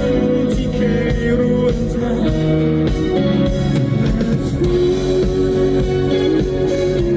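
Live acoustic guitar strummed with a male voice singing into a microphone, amplified through a PA, with long held notes.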